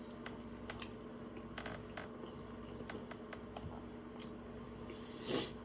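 A man chewing a mouthful of chicken-breast and mashed-potato sandwich on a soft bun: small scattered wet mouth clicks, with one brief louder noise about five seconds in.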